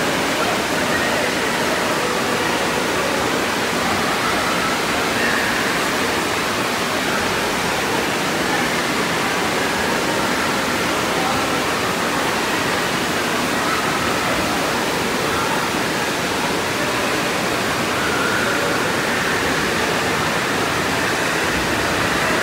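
Water rushing steadily down and around a water slide's bowl, a constant hiss of running water.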